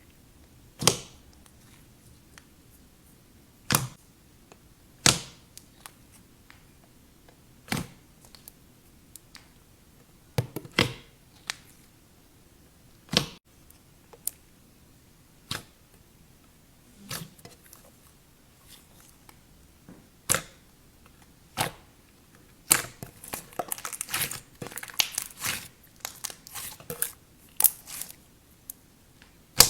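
Clay slime being pressed and poked by hand, giving sharp pops and clicks every second or two, then a quicker run of crackling pops about three-quarters of the way through.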